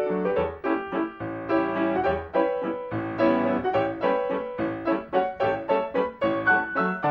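Solo piano accompaniment playing a lively run of quick notes and chords.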